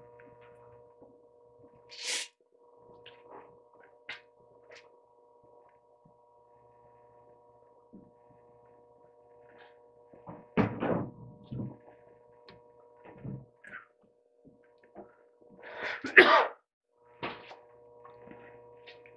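A steady electrical hum of several fixed tones, broken off briefly twice, with scattered handling clicks and knocks; the loudest are two heavier clunks about eleven and sixteen seconds in, and a short hiss about two seconds in.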